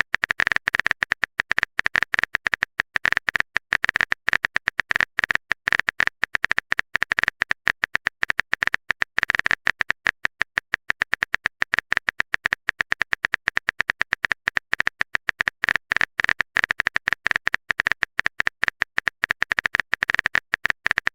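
Rapid phone-keyboard typing clicks, a typing sound effect, many taps a second in a steady unbroken run.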